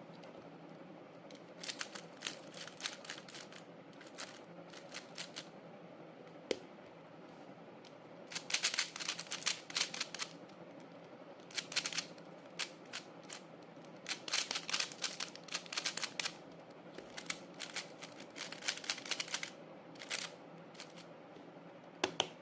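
GAN 12 Maglev 3x3 magnetic speedcube being turned fast: bursts of rapid clicking layer turns, with short pauses between them.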